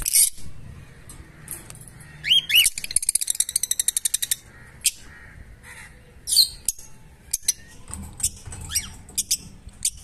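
Fischer's lovebirds chirping: short, shrill chirps scattered throughout, with a rising call and then a fast run of rapid chirps about three seconds in.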